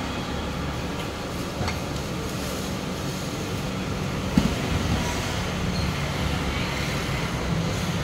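Steady street traffic noise, a low engine hum under an even wash of sound, with one short knock a little over four seconds in.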